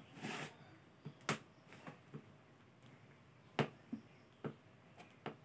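Eating sounds from a meal of rice taken by hand: a scattered handful of sharp clicks and taps, the loudest about three and a half seconds in.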